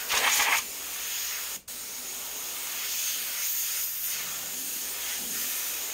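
Airbrush hissing steadily as it sprays paint onto a T-shirt. There is a stronger burst of air in the first half second, and the hiss drops out for an instant about a second and a half in.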